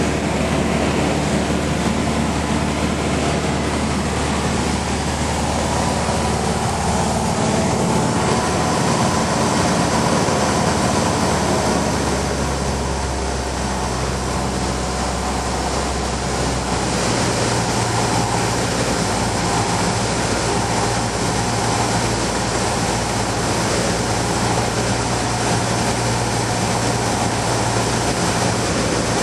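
Cessna 150's Continental O-200 four-cylinder engine and propeller droning steadily in the cockpit, over a constant rush of wind noise. The engine note changes about twelve seconds in and again a few seconds later.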